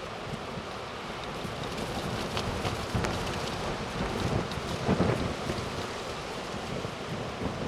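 Storm wind buffeting the microphone over the steady wash of surf, with rumbling gusts about three and five seconds in.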